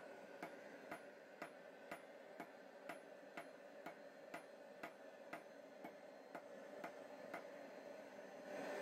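Hand hammer striking hot steel on an anvil during forging: faint, evenly spaced blows, about two a second, each with a short ring.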